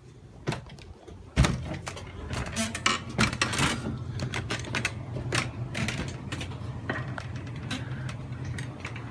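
Irregular knocks, clicks and scraping of installation work being handled by hand, with one loud sharp knock about a second and a half in, over a steady low hum.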